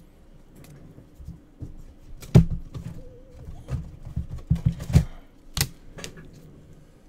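Trading cards and hard plastic card holders being handled and set down on a table: an irregular run of clicks, taps and light knocks, the loudest about two and a half seconds in and again a little after five seconds.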